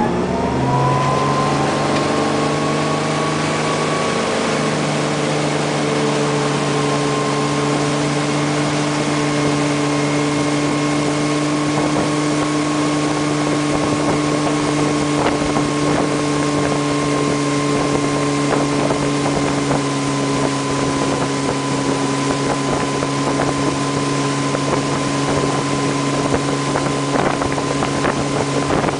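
Motorboat engine opening up to pull a wakeboarder out of the water, its pitch rising at the start and then holding steady at towing speed. A steady rush of wake water and wind on the microphone runs under it.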